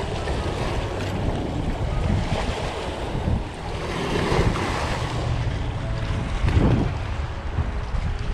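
Small waves washing against a rocky shoreline and seawall, with wind buffeting the microphone in a steady low rumble.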